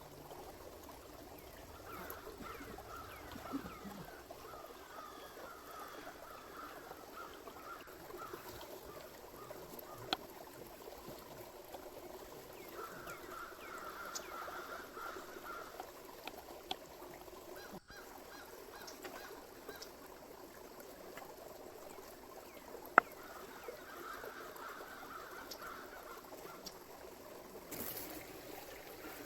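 Birds calling in three bouts of quick repeated notes over the steady rush of a flowing river, with a few sharp clicks, the loudest about two-thirds of the way through.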